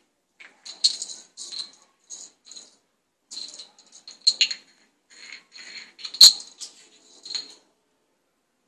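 Plastic bottle cap clicking and rattling across a hard tile floor as kittens bat it about, in quick irregular taps with one loud knock about six seconds in. It goes quiet shortly before the end.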